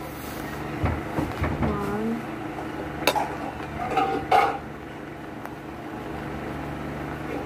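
Sugar poured from a crinkling plastic bag into a bowl, with a few sharp clicks and knocks of a spoon against the bowl, one about three seconds in and another over a second later.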